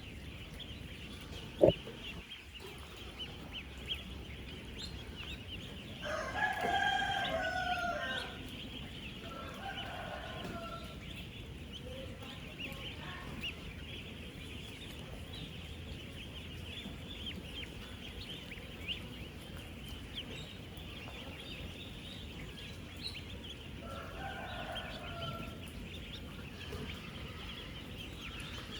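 A large flock of ten-day-old ducklings peeping continuously, a dense chatter of many high peeps. About six seconds in a louder, lower call rings out for about two seconds, with fainter similar calls later, and a single sharp knock sounds near the start.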